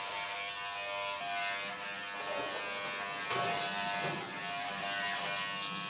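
WAHL corded electric pet clipper running with a steady buzz as it shears a small dog's long white coat.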